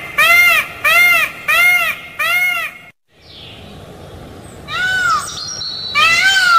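Peafowl calling: a quick run of four short calls about half a second apart, each rising and falling in pitch, then a sudden drop-out at about three seconds and two longer calls near the end.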